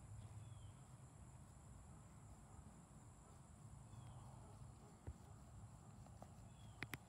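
Near silence outdoors: a faint low rumble with three faint short falling chirps from a bird, and a few sharp clicks near the end.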